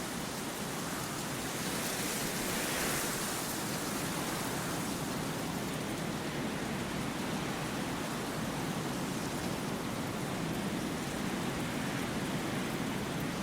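Steady, even hiss with no distinct events, swelling slightly about two to three seconds in.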